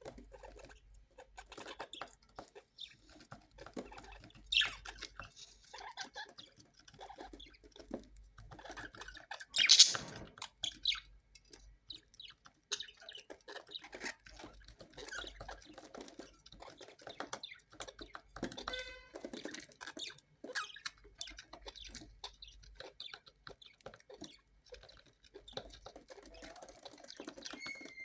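Parrots chirping and calling over a steady patter of small clicks and scratches, with one sharp, loud squawk about ten seconds in.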